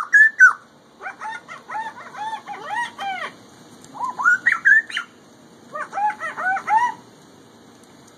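Laughing kookaburra calling: rapid runs of arched notes, each rising then falling, in several bursts with short pauses between.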